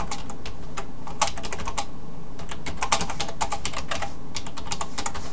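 Computer keyboard being typed on in quick, uneven runs of keystrokes, with a brief pause about two seconds in.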